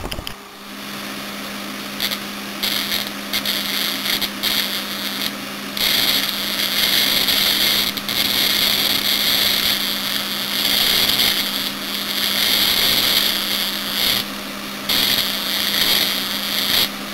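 High-voltage plasma arc between a hand-held wire and a plant leaf, a hissing, crackling buzz that comes and goes in stretches as the wire nears and leaves the leaf, over a steady low hum. The hot plasma is burning the leaf bit by bit.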